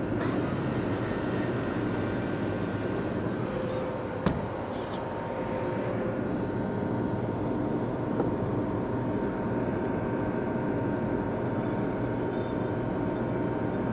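Steady mechanical hum with faint constant tones, with one sharp click about four seconds in.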